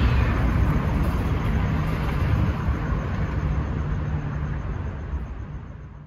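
Steady low rumble of a running vehicle, fading out over the last two seconds.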